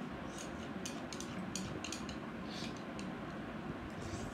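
Chopsticks tapping and scraping on plates while picking up instant noodles: about ten short, sharp clicks at irregular intervals over a steady low background noise.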